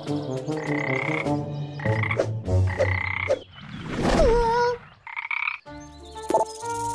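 Frog croaking: a series of croaks in a row.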